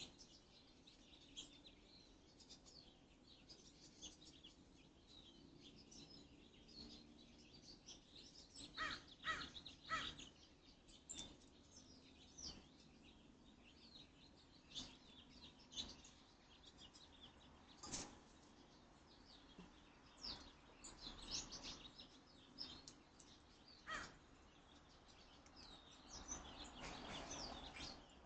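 Faint outdoor birdsong: many short high chirps throughout, with a few louder, harsher calls about nine and ten seconds in.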